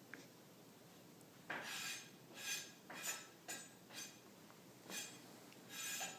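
A run of about seven quick, short sneezes, coming less than a second apart.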